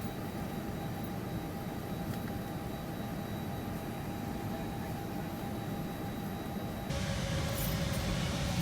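Steady low rumble and hum of a vehicle interior, with a faint constant whine. About seven seconds in it turns suddenly louder and hissier.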